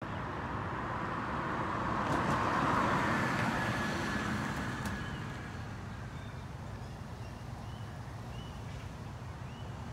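A passing road vehicle: a broad rushing noise that swells to a peak about two to three seconds in and then fades into a steady background hum. Several short, high chirps come from about halfway through.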